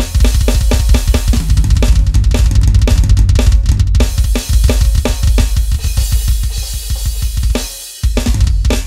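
Roland TD-11K electronic drum kit played through its module, a fast, busy beat of bass drum, snare and cymbals. The playing breaks off briefly about eight seconds in, then a last run of hits follows.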